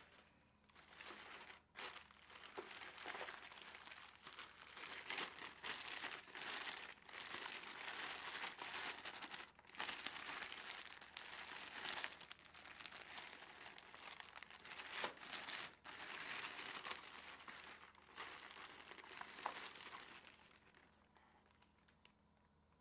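Shiny plastic packaging bag crinkling and rustling in irregular handfuls as it is handled and opened and a small boxed toy is pulled out. The crinkling dies away about two seconds before the end.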